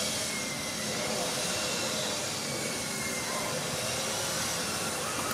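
A steady hiss of outdoor background noise, with no distinct event.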